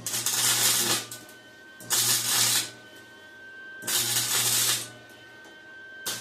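Short bursts of arc welding on metal, about a second each and four in all, crackling with a low buzz under each burst, with a faint steady whine between them.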